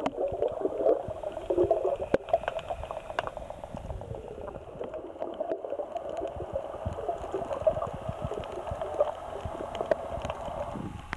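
Muffled underwater sound from a snorkeler's waterproof camera: a wavering wash of moving water with scattered sharp clicks, cutting off suddenly near the end.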